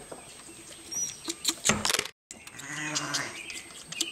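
Sharp clicks and rustles, then, after a brief dropout about two seconds in, a Shetland sheep bleats once, a call of about a second.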